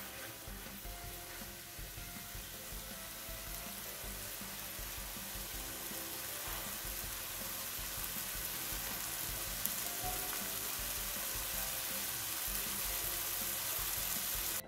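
Jackfruit in chili sambal sauce sizzling in a pan as the sauce cooks down and thickens, a steady frying hiss that grows slightly louder.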